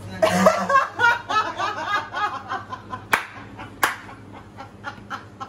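Hearty laughter: a voice breaking into quick repeated bursts for about three seconds, with two sharp smacks about three seconds in, then fading to lighter laughing.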